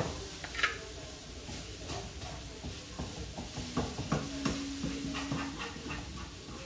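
Light clinks and scrapes of a utensil in a frying pan of sautéing mushrooms and onion, over a faint hiss. A brief low whine, broken by several short gaps, sounds in the middle.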